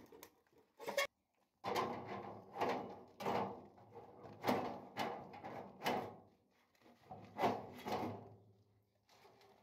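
A series of about ten sharp knocks and scrapes of hard objects being handled, each ringing briefly, at uneven intervals.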